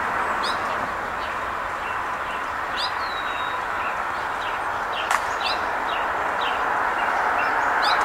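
Small songbirds chirping: short, high notes scattered throughout, including a quicker run of notes in the second half. Underneath is a steady rushing background noise that grows a little louder near the end, with one brief sharp click about five seconds in.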